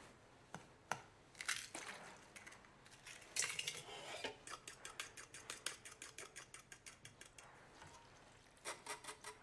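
A few knocks and scrapes as eggs are cracked into a stainless steel bowl, then a utensil whisking them, clicking against the bowl in rapid, even strokes, about six a second, with a brief pause before the end.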